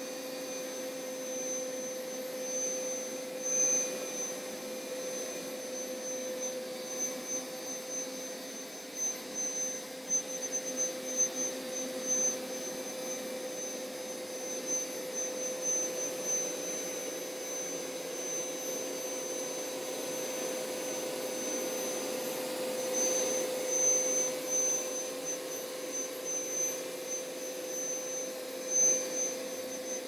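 Hoover PowerScrub Deluxe carpet cleaner running on carpet: a steady motor whine with one constant middle tone and a thin high tone over a soft rush of suction. It swells somewhat about two-thirds of the way through as the machine is pushed closer.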